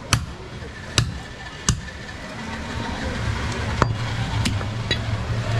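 Large butcher's knife chopping goat meat on a wooden chopping block: sharp single chops, three in the first two seconds and two more around four seconds in. A low steady hum comes up behind them about halfway through.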